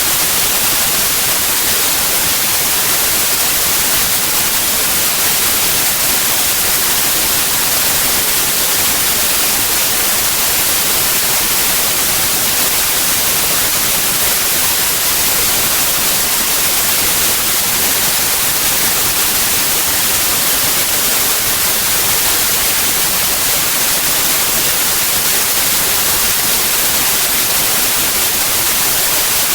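Steady white noise: an even, unbroken hiss, bright and strongest in the high end.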